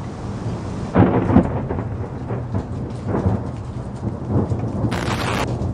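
Thunder-and-rain sound effect: a steady hiss of rain under rolling thunder, with louder cracks about a second in and again near the end.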